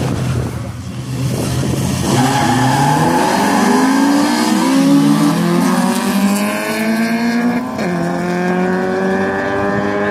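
Two hatchback cars' engines accelerating hard off a drag-race start line. The engine pitch climbs from about two seconds in and drops back at gear changes, sharply about eight seconds in, before climbing again.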